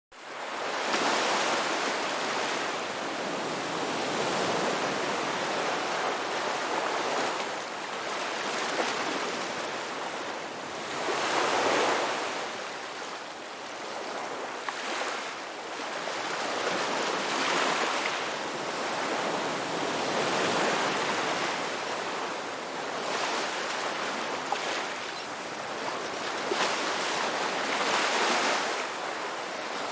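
Sea waves breaking and washing on a shore: a continuous rush of surf that swells and eases every three to four seconds, fading in at the very start.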